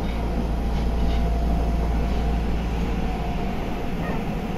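Interior running noise of a Nagoya Municipal Subway Meijō Line 2000 series train: a steady, deep rumble from the car travelling along the track, with a few faint steady tones above it.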